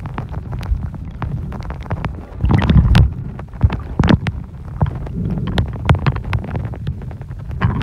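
Underwater sound taken through a camera held below the surface: a steady low rumble of moving water, scattered sharp clicks and crackles, and a louder rushing swell about two and a half seconds in.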